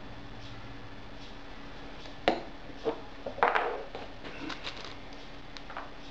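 A sharp click, then small metal clinks and rattles as loose metal leather studs are picked out of a small plastic box, with a few scattered ticks after, over a faint steady hum.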